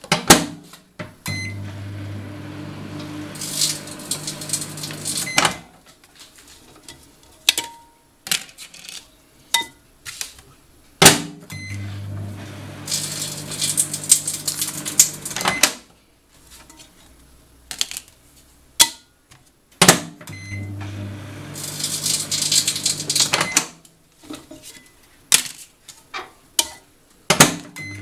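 An 800 W microwave oven running in three runs of about four seconds each, each begun by a sharp click, its transformer humming steadily. Partway into each run comes a dense crackling as the DVD's metal layer arcs and sparks. Scattered clicks fall in the pauses between runs.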